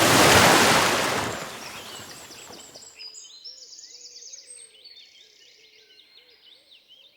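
A loud rushing surge of noise in the first second that fades away over the next two seconds, then several birds chirping and singing, with quick high notes that continue to the end.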